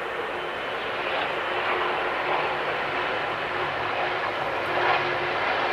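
Four jet engines of a Boeing 747-400 running at low taxi power as the airliner rolls past, a steady rushing hum that grows slightly louder.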